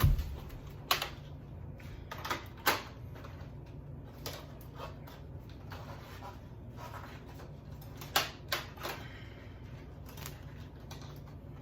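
Scattered sharp plastic clicks and knocks from a toy minigun gel blaster and its parts being handled and unpacked, about seven in all, bunched in the first three seconds and again a little after eight seconds, over a low steady hum.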